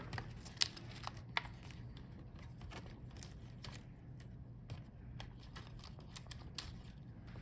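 Faint, scattered small clicks and taps of cable connectors being unlatched and unplugged from a laptop motherboard by hand.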